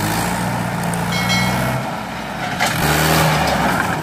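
Mahindra 575 DI tractor's diesel engine running hard under heavy load as it pulls a fully loaded sugarcane trolley, the steady engine note dropping out briefly near the middle before picking up again.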